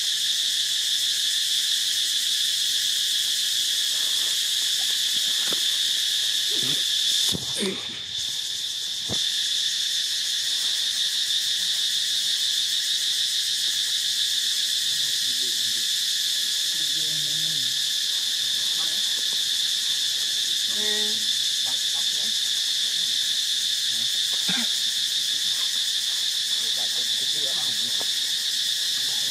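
Steady, high-pitched chorus of insects trilling, holding at an even level. It dips briefly with a knock about seven seconds in.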